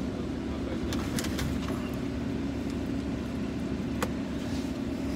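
Car engine idling steadily, heard from inside the cabin as a constant low hum, with a few light clicks about a second in and again near four seconds.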